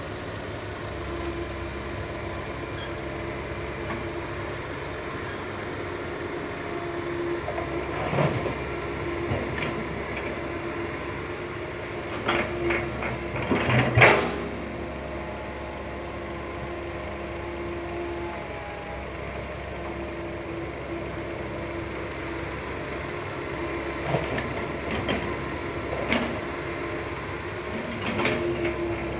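Komatsu PC160 hydraulic excavator's diesel engine running steadily with a held whine, and a series of clanks and thuds as it works, the loudest about fourteen seconds in.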